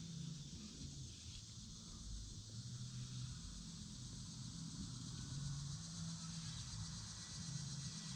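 Evening insect chorus, crickets or katydids, a steady high-pitched trilling, with a low hum underneath that comes and goes.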